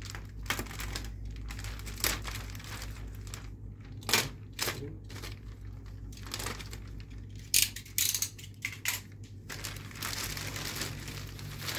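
Clear plastic wrapping on a gaming chair being handled and pulled open. It gives irregular crinkling and rustling, with sharper crackles about four and seven and a half seconds in.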